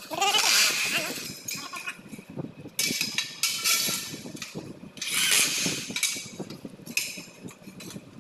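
Handheld power drill fastening a corner cleat on an aluminium box-section frame, run in several short bursts of about a second each, the first one rising in pitch as the motor spins up.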